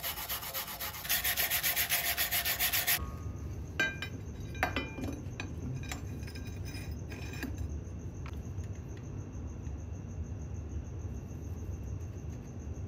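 Hand wire brush scrubbing grease and dirt off a metal bracket plate in quick back-and-forth strokes, cut off suddenly about three seconds in. Then a few light metal clicks and taps as the plate is offered up to the frame, over a steady low hum.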